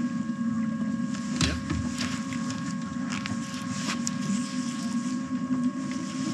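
A fishing reel is cranked in against a hooked fish, with scattered clicks, over a boat motor running with a steady hum and whine.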